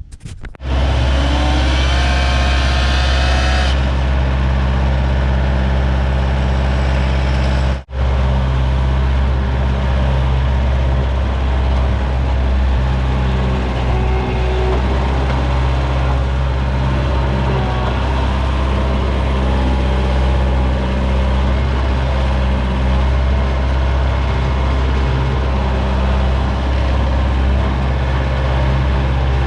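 A vehicle engine running steadily at an even speed, with a higher whine over it for the first few seconds. It cuts out for an instant about eight seconds in.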